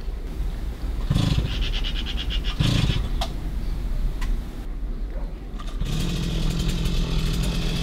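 Chainsaw revving in two short bursts with a fast rattling chatter, then running steadily toward the end.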